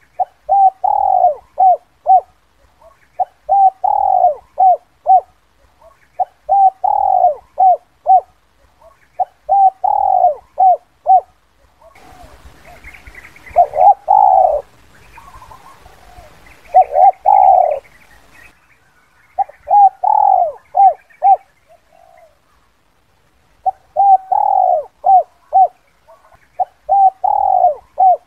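Spotted dove singing its 'kuk 2' lure call: short phrases of a few low, rising-and-falling coos, repeated every two to three seconds. In the middle, a faint hiss and higher chirping sit under the coos.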